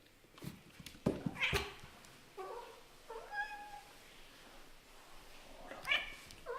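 Cats meowing: several short meows, one rising near the end, after a few sharp knocks about a second in.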